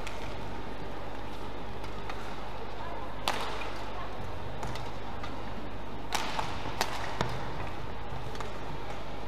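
Badminton rackets striking the shuttlecock during a rally: a sharp smack about three seconds in, another about six seconds in, then a couple of lighter knocks soon after, over a steady hall hum.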